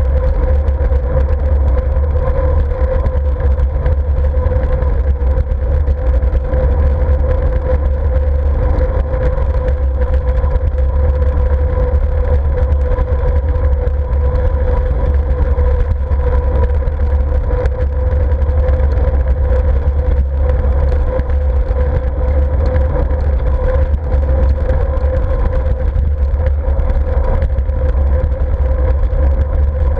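Wind buffeting a GoPro camera's microphone while cycling: a steady low rumble, with a constant hum running through it.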